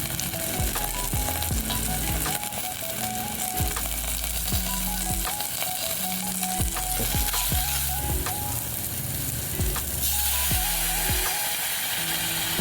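Food sizzling as it fries in a pan and is stirred, with background music and a bass line playing throughout.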